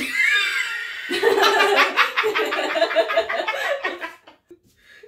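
A woman laughing loudly in rapid pulses for about four seconds, then trailing off.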